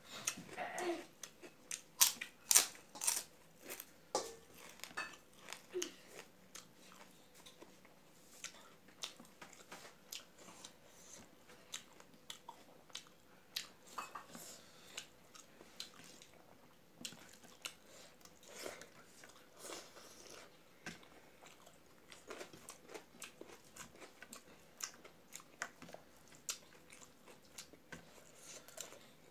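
Close-up eating sounds: chewing and crunching of rice, curry and fried papad, heard as many sharp, irregular clicks, loudest about two to three seconds in.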